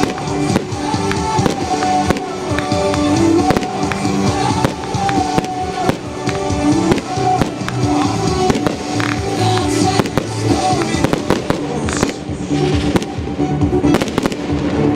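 Fireworks bursting in rapid, irregular succession, with sharp reports and crackle, over music playing throughout.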